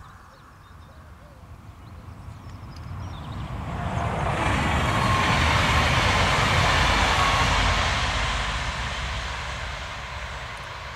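SNCF TER 2N NG (Z 24500 class) double-deck electric multiple unit running past, its running noise swelling over a few seconds, holding, then slowly fading as it draws away.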